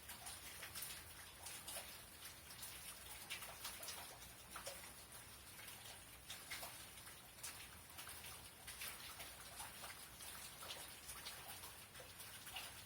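Faint rain during a thunderstorm, with irregular drops ticking several times a second over a soft steady hiss.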